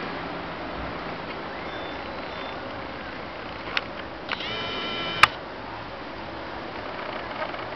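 Steady outdoor background hiss. About halfway through, a camcorder's zoom motor clicks, whines briefly and stops with a sharp click, the loudest moment.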